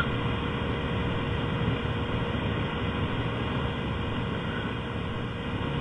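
Steady hiss of a narrow-band audio line, with a faint steady hum tone underneath.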